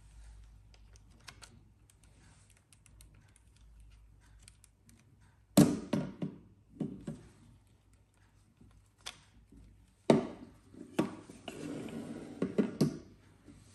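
Handling noise from hair clippers and their power cord: a string of sharp knocks and clicks of plastic on a tabletop, the loudest about halfway through, with rustling as the clippers are set down near the end. The clippers are not running.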